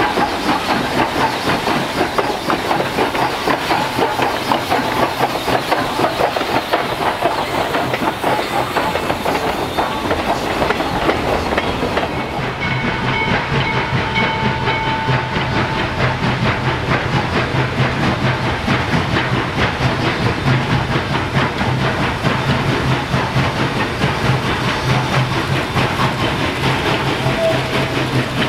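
Western Maryland Scenic Railroad No. 1309, a Baldwin 2-6-6-2 Mallet steam locomotive, working hard with a dense run of exhaust beats and the rumble of its train. About halfway through, the sound changes to a steady low drone as the locomotive works through a tunnel toward the portal.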